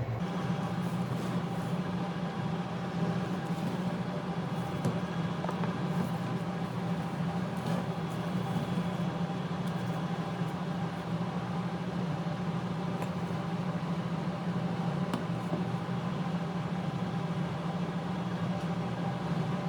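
A steady mechanical hum that holds one low pitch, which steps up just as it begins. A few faint light clicks sound over it.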